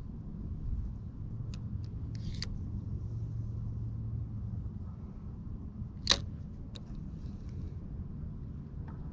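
Low steady rumble, with a steady hum for about the first half, under a few light clicks from handling a spinning reel and its line. The loudest is one sharp click about six seconds in.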